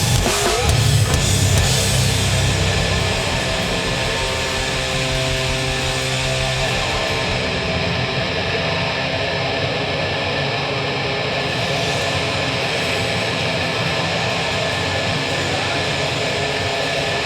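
Live hardcore band: the heavy end of a song cuts out about three seconds in, leaving a steady wash of guitar amplifier feedback and noise ringing on between songs.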